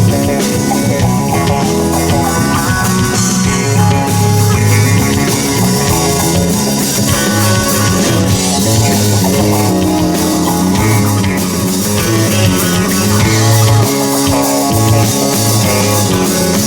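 Live rock band playing an instrumental jam passage, with electric guitar and keyboards over bass guitar and drum kit.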